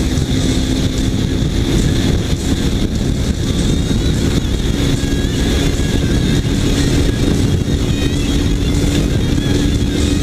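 Kawasaki Ninja 300 parallel-twin motorcycle cruising at a steady speed, its engine holding a steady note under heavy wind and road rumble.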